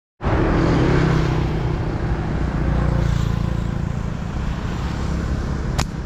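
Steady low rumble of a motor vehicle engine, with a sharp click near the end.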